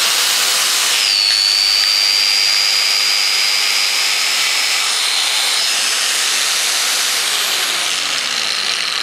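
Angle grinder running at full speed after being reassembled with its gearbox freshly greased: a steady high whine over a broad hiss.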